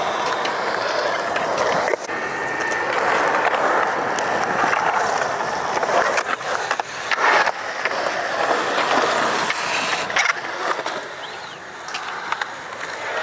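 Skateboard wheels rolling over concrete with a steady rolling noise, and a few sharp clacks of the board hitting the surface about 2, 6, 7 and 10 seconds in.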